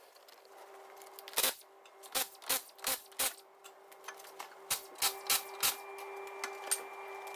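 Sharp metallic knocks and clicks as a front wheel and its bolts are taken off a car: single knocks about a second and a half in, then two runs of about four strokes a third of a second apart, over a steady hum.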